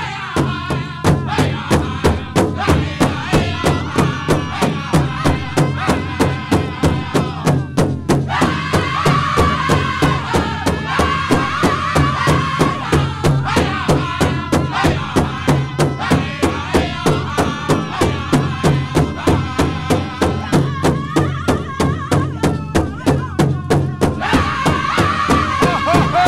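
Pow wow drum group singing a men's prairie chicken dance song, with several voices over a big drum beaten in a steady, even rhythm of about two and a half strokes a second.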